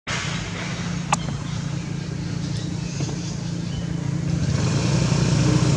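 Steady low rumble of a running motor vehicle, with one sharp click about a second in, growing a little louder near the end.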